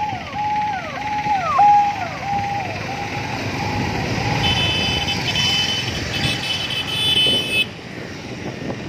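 Busy street traffic heard from a moving vehicle. An electronic warning tone repeats about twice a second, each note dropping in pitch, and fades out over the first few seconds. After that a high-pitched tone sounds in short broken blasts for about three seconds and cuts off.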